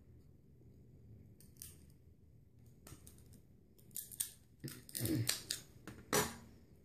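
Sharp scissors cutting through cooked crab shell. A few scattered snips come first, then a run of loud crunching cuts in the second half.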